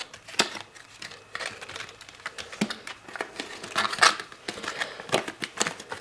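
Rigid clear plastic clamshell packaging of a RAM module crinkling and clicking as it is handled and opened, with irregular sharp clicks throughout and a few louder snaps about half a second, four and five seconds in.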